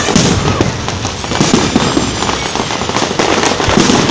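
Fireworks going off: a dense, continuous crackle of many rapid small pops.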